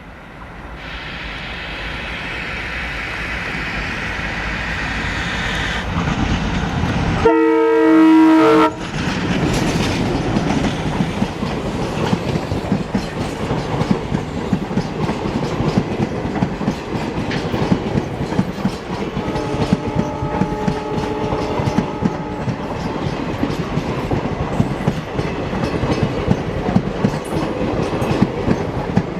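A train approaching and passing at speed. The locomotive horn gives one loud blast about seven seconds in and a fainter, shorter one around twenty seconds in, while the wheels clatter steadily over the rail joints.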